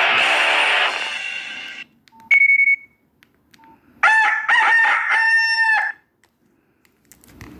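Nokia 6131 mobile phone playing a rooster-crow alert tone: a cock-a-doodle-doo of about two seconds starting about four seconds in, its last note held. Before it, the tail of an earlier noisy tone fades out and a short high beep sounds.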